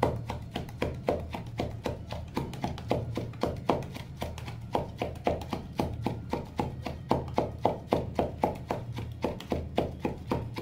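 A wooden rolling pin used as a pestle, pounding wet spices (mustard seeds and green chillies) inside a steel tumbler, about three to four strokes a second, while the paste is ground finer. A steady low hum runs under the strokes.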